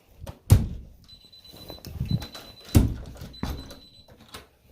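Handling noises of a broken charger box being picked over by hand: a few sharp knocks, the loudest about half a second in and near three seconds, with rustling and clatter between them and a faint steady high tone in the middle.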